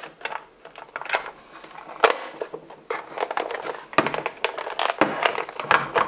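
Sharp clicks and knocks of a plastic fan housing being handled and screwed together, with the loudest knocks about two and four seconds in.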